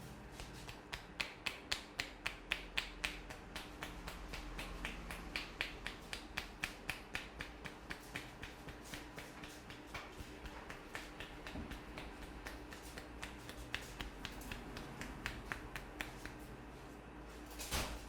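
Quick rhythmic hand strikes on the head during a head massage: sharp slapping claps at about four a second, in runs with short pauses between them. A brief louder noise comes near the end.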